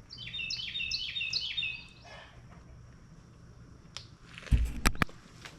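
A songbird sings a quick run of repeated, falling whistled notes for about two seconds. Near the end come a few loud, sharp knocks.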